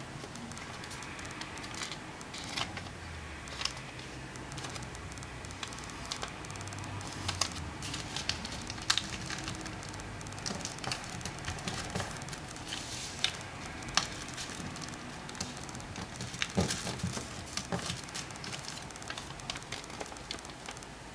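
A sheet of origami paper being folded and creased by hand: irregular crisp crackles and crinkles, with a few sharper clicks, over a steady hiss.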